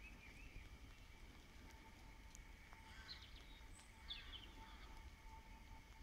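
Near silence, with a few faint bird chirps about three and four seconds in over a low steady background rumble.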